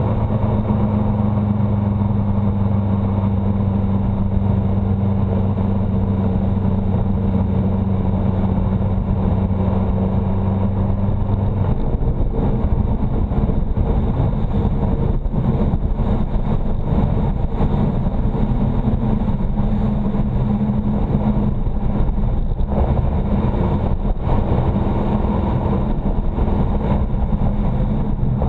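Motorcycle engine running at cruising speed under wind and road rush. Its note is steady for about the first twelve seconds, then turns rougher and shifts in pitch as the bike slows through a bend.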